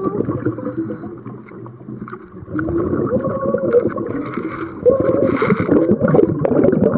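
Underwater sound from a submerged camera: gurgling, crackling water with a wavering low hum, and a few short hissy rushes, the loudest about five seconds in.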